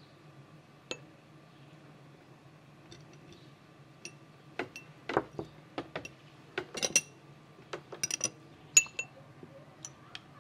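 Dishes and utensils clinking: irregular light taps and clinks, some with a short bright ring. They are sparse at first and come thicker from about four seconds in.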